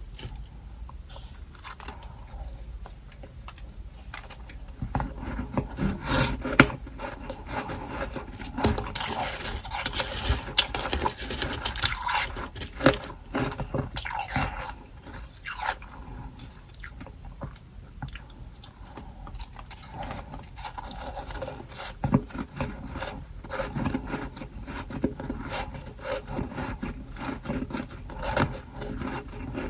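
Close-miked crunching and scraping of soft, powdery freezer frost, with irregular sharp crunches over a rough rubbing texture. It is busiest from about five to sixteen seconds in, with a few louder crunches.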